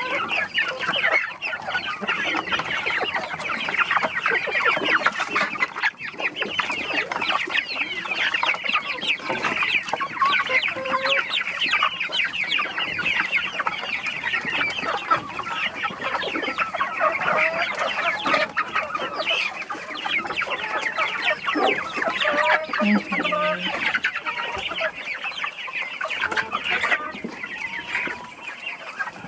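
A flock of chickens clucking and calling continuously, many birds at once.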